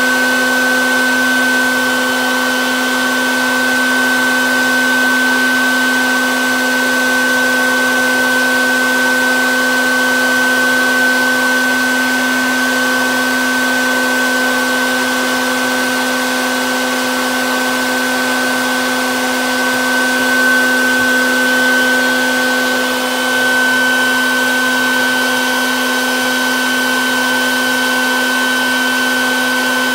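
Colorado Bee Vac bee vacuum running steadily, a constant hum with a higher whine over it, as its hose sucks honey bees off a hanging comb colony.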